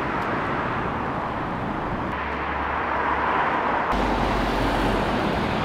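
Strong wind buffeting the microphone: a steady rushing noise with heavy low rumbles that swell about two seconds in and again about four seconds in.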